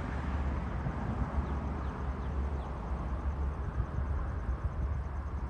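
Outdoor ambience: a steady, uneven low rumble, with a few faint, short, high bird chirps over it.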